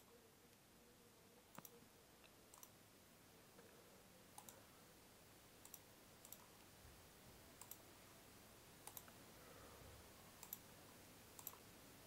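Faint computer mouse clicks, single and double, every second or two over near silence.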